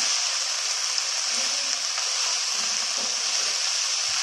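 Chopped radish leaves and grated white radish sizzling steadily in hot oil in a non-stick frying pan while a spatula stirs them, with a few soft taps of the spatula against the pan.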